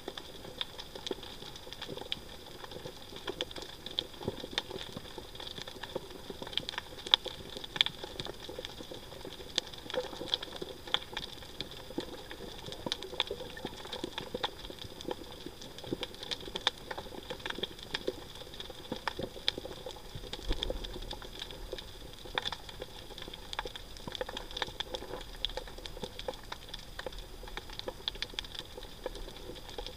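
Underwater reef ambience: a dense, irregular crackle of many sharp clicks, over a faint steady high whine.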